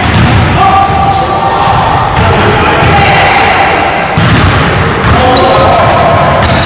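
Sound of a pickup basketball game on a hardwood gym floor: the ball bouncing, sneakers squeaking in short high squeals, and players' voices calling out, echoing in the hall.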